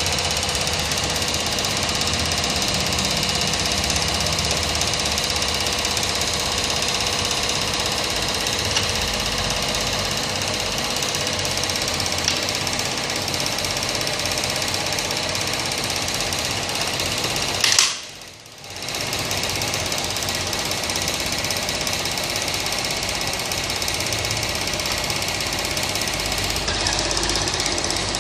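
Small pump on a fuel-filter test rig running steadily, drawing coffee-stained water through the filter. About two-thirds through it cuts out with a click for about a second, then runs on.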